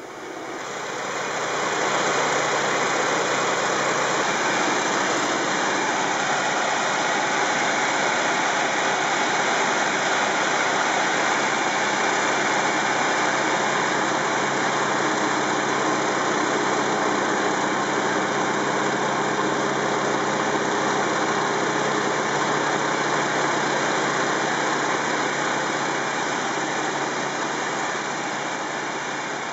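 Steady drone of a T-28D Trojan's Wright R-1820 nine-cylinder radial engine, with wind noise, heard from inside the cockpit in flight. It fades in over the first couple of seconds and eases down a little near the end.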